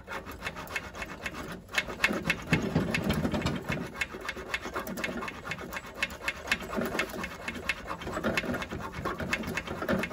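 Hand file rasping in quick, even back-and-forth strokes on the end of the exhaust valve stem of a Briggs & Stratton 10.5 vertical-shaft engine. The stem is being filed down to open up valve lash that was too tight after a valve job.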